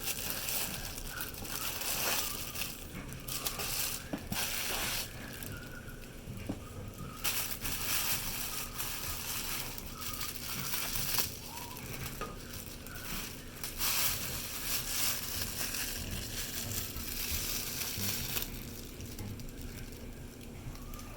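Packaging being opened and handled by hand, crinkling and rustling in irregular bursts.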